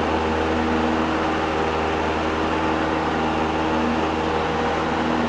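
Cessna 172's piston engine and propeller at full power for a go-around climb, a steady drone heard inside the cabin.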